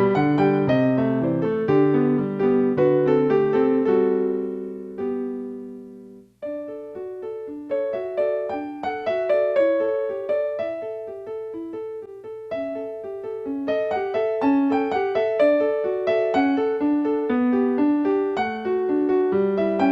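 Solo piano playing. A held chord dies away about five seconds in, and the playing starts again a second later.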